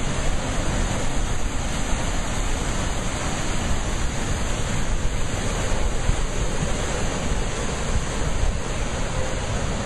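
Rough ocean surf churning against rocks: a steady, heavy rush of whitewater with a deep rumble underneath.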